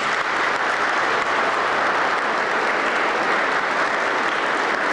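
A crowd applauding, a dense, steady clapping that starts just as the announcement before it ends.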